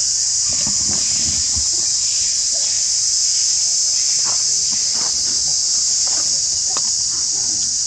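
Steady, high insect drone, such as cicadas or crickets, holding without a break. Faint short rustles and small sounds come and go beneath it.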